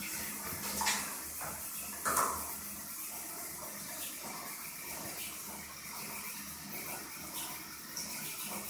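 Bathtub water lapping and splashing as a small dog, a Japanese Chin, paddles in it, with two louder splashes about one and two seconds in.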